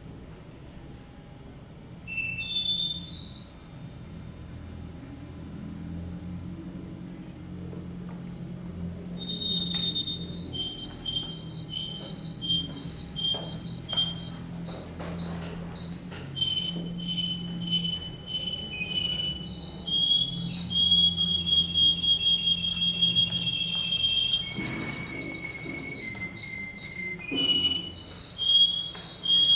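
Male domestic canary singing a long, continuous contest song built of separate tours: high whistled notes stepping up and down, runs of quickly repeated chirps at about three or four a second, and long steady trills, one held low near the end.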